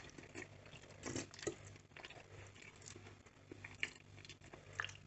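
Quiet chewing of a mouthful of food, with a few faint clicks and taps scattered through, over a low steady hum.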